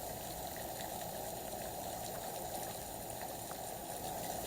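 A steady, faint noise like running or bubbling water, with no distinct events.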